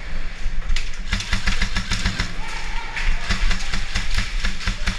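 Airsoft rifle fire: rapid, rattling runs of sharp clicks that start about a second in and go on in clusters.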